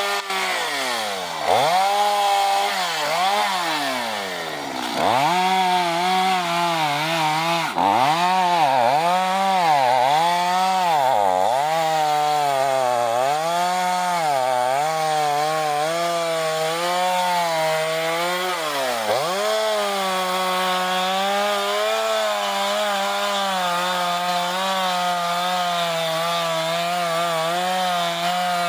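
Two-stroke chainsaw cutting through a fallen tree: its engine note repeatedly sags and picks back up as the chain bites into the wood, then holds a steady high pitch from about two-thirds of the way in.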